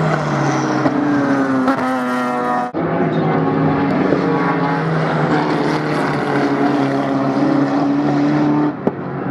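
Improved Production race car engines running hard at high revs, with a strong pitched engine note that holds fairly steady. The sound cuts off abruptly about a third of the way in and again near the end, then picks straight back up.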